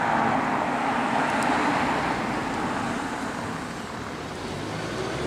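Road traffic noise: a vehicle going by on the road, loudest in the first couple of seconds and then easing off.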